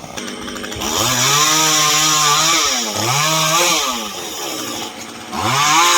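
Two-stroke chainsaw revving hard three times, dropping back to a lower speed between the runs.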